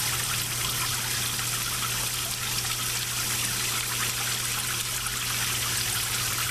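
Water spraying from a hose into a plastic storage tub as it fills, a steady hissing patter with a steady low hum underneath.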